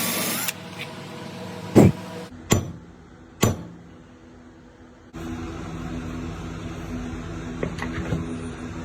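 Powermatic wood lathe running with a steady motor hum. There are three sharp knocks in the first few seconds, and the hum steps up louder about five seconds in.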